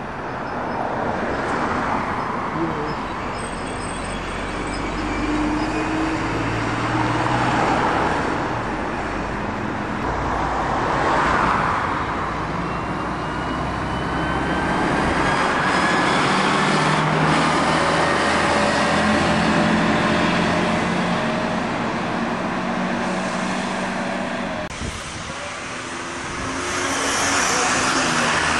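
Road traffic, with several vehicles passing one after another, each growing louder and then fading. In the middle an engine note climbs steadily as a vehicle accelerates away.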